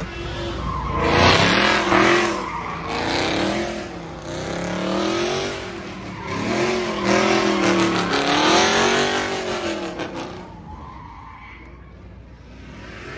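Car sliding with its tires squealing, the engine revving up and down in repeated waves, then fading away over the last few seconds.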